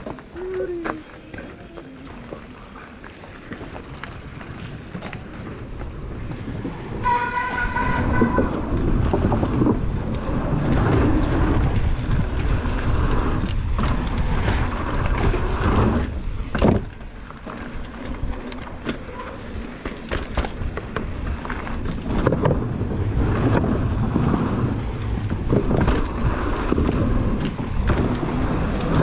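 Mountain bike running down a trail: tyre roll, rattling and knocks from the bike, with wind noise on the camera, quieter at first and picking up to a louder rough rumble about seven seconds in. A short high-pitched squeal sounds just as it picks up.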